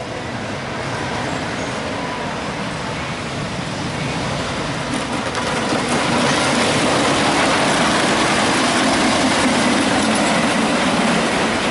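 Wooden roller coaster train rumbling along its wooden track, growing louder over several seconds and staying loud before it starts to fade near the end.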